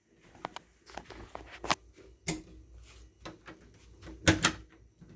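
Irregular knocks and clicks of a door and its latch, several sharp hits with the loudest about two seconds in and again near the end.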